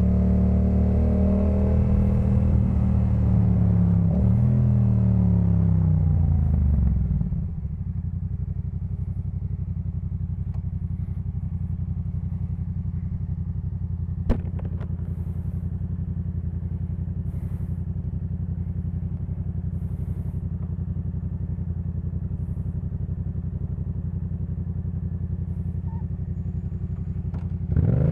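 Yamaha MT-07 parallel-twin engine through a Jeskap K4 full exhaust. It runs under power at first, then falls in pitch as the bike slows, about six seconds in. It idles steadily for about twenty seconds, with a single sharp click midway, and picks up again at the very end as the bike pulls away.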